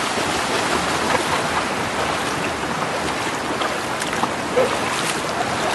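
River water flowing steadily, an even rushing with a few faint ticks.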